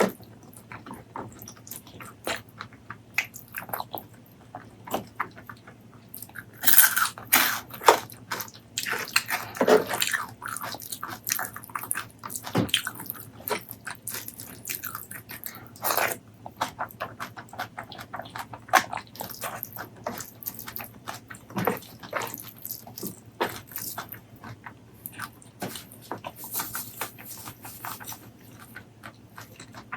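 Close-miked eating: biting and chewing with many short, sharp mouth clicks and smacks, and a louder, denser stretch about seven to ten seconds in.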